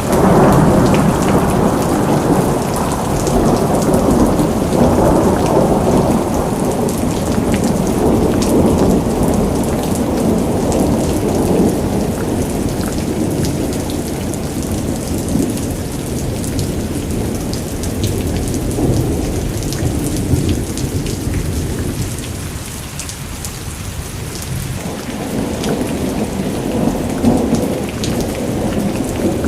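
Heavy rain pouring steadily during a thunderstorm, with thunder rumbling low underneath. The rumble swells and eases several times, heaviest in the first ten seconds or so and building again near the end.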